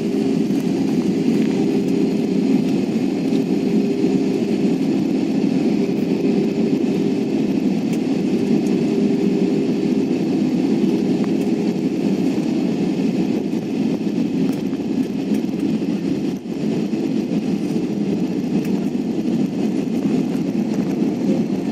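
Steady drone of an airliner's engines and airflow, heard inside the passenger cabin during landing, with a faint steady hum in it.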